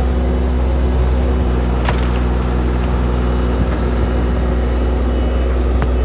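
Skid-steer loader engine running steadily under load, driving the hydraulic log splitter down through a large wood round. There is a sharp crack about two seconds in and a lighter one near the end.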